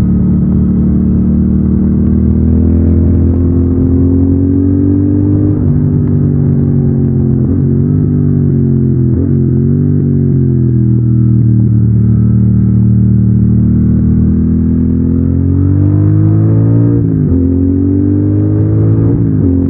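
Triumph Thruxton 1200's parallel-twin engine through its stock exhaust, pulling hard on the road: the pitch climbs and then drops sharply at each upshift, about five seconds in, near the end, and once in between, with the revs wavering up and down in the middle stretch. The sound is picked up from a backpack on the rider.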